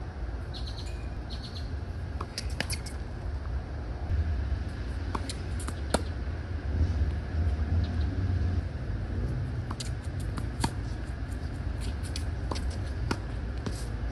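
Tennis rally on an outdoor hard court: sharp knocks of a tennis ball struck by rackets and bouncing on the court, spaced a few seconds apart and then closer together near the end. A steady low rumble runs underneath.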